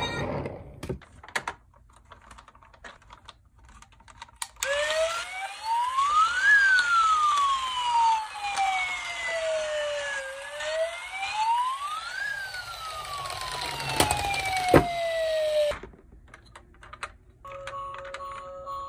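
Toy police car's electronic siren sounding a wail: two slow rise-and-fall cycles, each climbing for about two seconds and sliding down for about four, starting about five seconds in and stopping suddenly near the end. Before it there are a few light clicks of toys being handled, and near the end a steady electronic tone starts.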